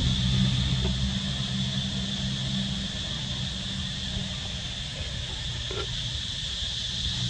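Outdoor ambience: a steady, high-pitched drone of insects over a low, steady hum, with a couple of faint short sounds about a second in and near six seconds.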